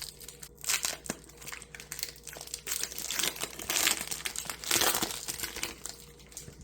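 Foil wrapper of a Pokémon TCG booster pack crinkling as it is torn open and handled, in irregular crackly bursts.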